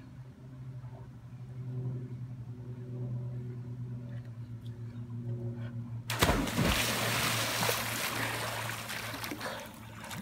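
Water splashing and sloshing in a swimming pool, starting abruptly about six seconds in, over a steady low hum.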